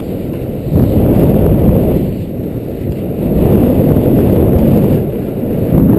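Wind buffeting the microphone of a skier's action camera during a fast downhill run: a loud, low rushing rumble that swells about a second in and eases briefly around halfway.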